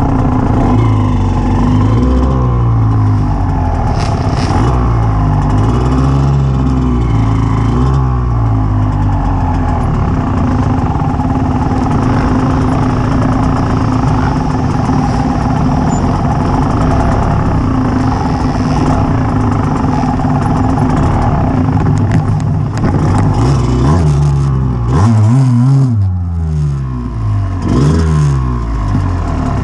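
Dirt bike engine heard close up from the bike's own handlebar mount, ridden slowly on a rough trail with the throttle opened and closed again and again, so the revs keep rising and falling. The revs run steadier in the middle, then rise and fall quickly near the end, dropping away briefly just before.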